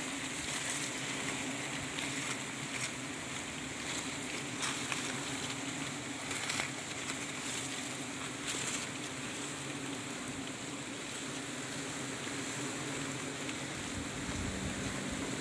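A swarm of wild honey bees buzzing around their exposed comb: a continuous low hum, with a few brief rustles of leaves a few seconds in.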